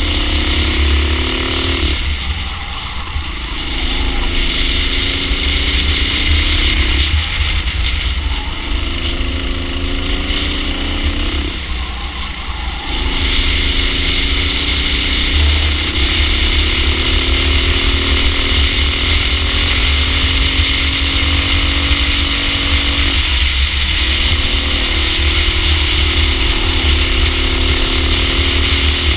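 Racing kart engine heard onboard at race pace, its pitch climbing along each straight and dropping briefly about four times as the driver lifts off for corners.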